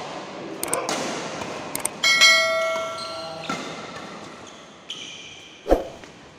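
Badminton rally: sharp racket hits on the shuttlecock and a heavy thud near the end. About two seconds in, the bright ringing chime of a subscribe-button bell effect starts suddenly and fades over a second or so. It is the loudest sound.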